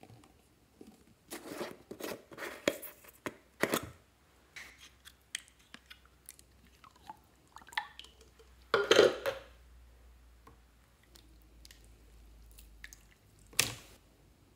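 Slime squeezed and stretched by hand in a plastic basin: irregular sticky, squishy crackles and pops, with a louder squelch about nine seconds in and a sharp slap near the end.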